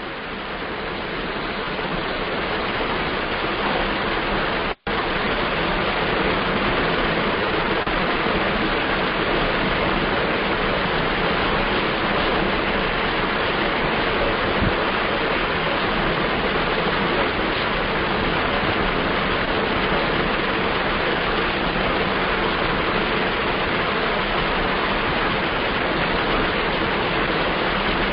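Loud steady hiss, rushing-water-like, that swells over the first few seconds and breaks off for an instant about five seconds in.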